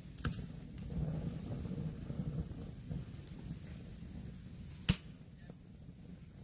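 Campfire crackling: sharp wood pops, two near the start and a loudest one about five seconds in, over a low rumble.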